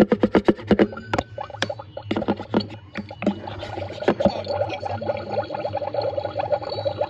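Electronic toy cauldron playing its sound effects through a small speaker over a steady low hum. A rapid even pulsing breaks off about a second in, then come scattered clicks, and a dense fluttering pattern sets in about four seconds in.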